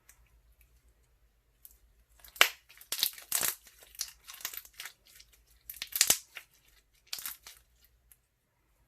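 Clear crunchy slime squeezed and pressed by hand, giving clusters of crackles and popping air bubbles. It starts about two seconds in, with the sharpest pops about two and a half and six seconds in.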